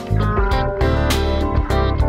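A song with guitar, bass and drums keeping a steady beat, and a sung vocal.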